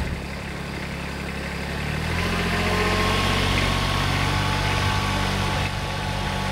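An engine running steadily at idle, a low even drone that gets louder about two seconds in.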